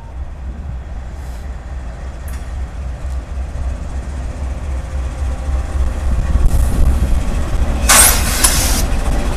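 Norfolk Southern GE diesel freight locomotives approaching and passing close by: a steady low engine rumble that grows louder as the units draw level. A short burst of hiss comes near the end.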